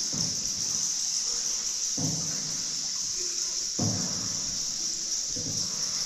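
Boat paddle strokes in the water, one about every two seconds, each a sudden splash and swish that fades, over a steady high hiss.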